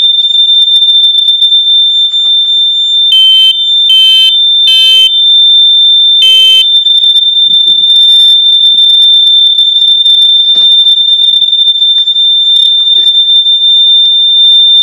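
Household smoke alarm on test, sounding one loud, steady high-pitched tone. Four short beeps sound over it about three to six and a half seconds in.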